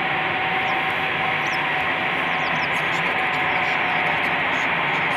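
Steady hiss of an airband radio scanner with the channel open and no one transmitting, its band cut off sharply at the top.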